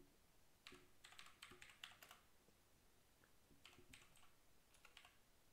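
Faint typing on a computer keyboard: two quick runs of keystrokes, one about a second in and another near the four-second mark.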